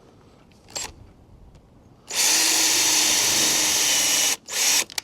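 Power drill running at speed for about two seconds, drilling a rivet hole for a number plate, then stopping and giving another short burst near the end.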